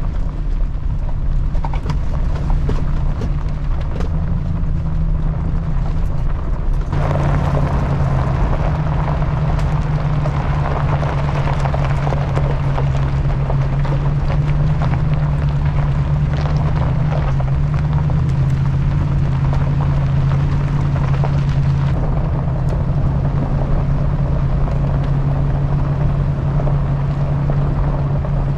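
Pickup truck driving slowly over a rough gravel road: a steady engine hum, with the tyres crunching and popping on loose stones. The crunching and rushing get much louder suddenly about seven seconds in and drop back about twenty-two seconds in.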